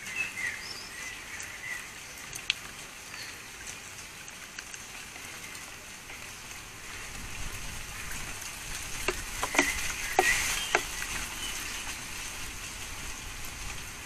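Magpie pecking and scrabbling at a wire-mesh mealworm feeder: a scatter of sharp taps and knocks, busiest around nine to eleven seconds in, over a steady crackly outdoor hiss. A few faint bird chirps are heard near the start.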